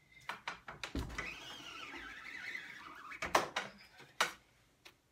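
Wooden-handled rubber squeegee dragged across an ink-laden silkscreen mesh, a scraping swish lasting about two seconds as the ink is spread over the screen. Short knocks and clicks come before and after it as the squeegee is handled against the frame.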